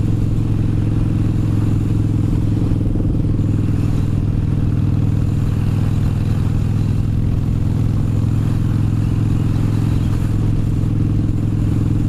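Harley-Davidson motorcycle's V-twin engine running steadily at cruising speed, with wind noise over the microphone.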